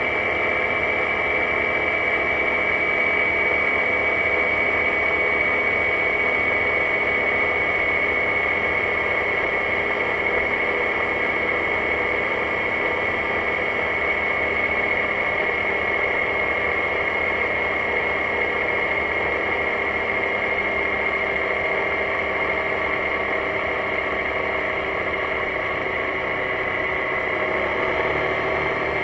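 BMW C650GT maxi-scooter's parallel-twin engine and belt drive droning at a steady cruising speed, under a constant rush of wind noise.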